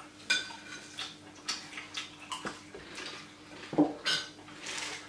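Forks and spoons clinking and scraping against a steel serving platter and plates: a handful of separate sharp clinks, each ringing briefly.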